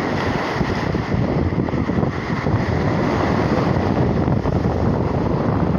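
Wind buffeting the microphone in loud, choppy gusts, over the wash of sea waves on the shore.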